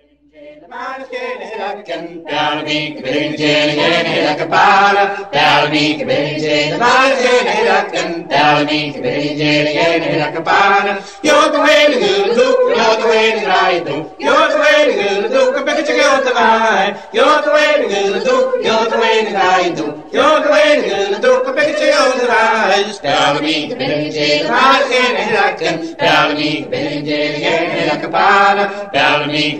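Singing in a chant-like style, the phrases broken by short pauses every few seconds; it starts up out of silence at the very beginning.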